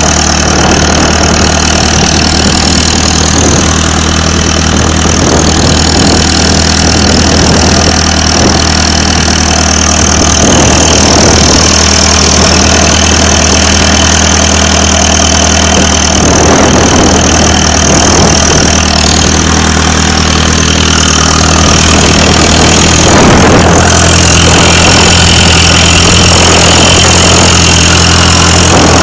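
An engine idling steadily with a constant low hum and a steady high whine above it, unchanged throughout.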